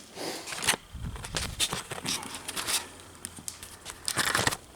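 Camera handling noise as the camera is picked up and carried: irregular knocks, rubbing and scraping on the microphone, with a low bump about a second in and a louder scrape near the end, mixed with footsteps.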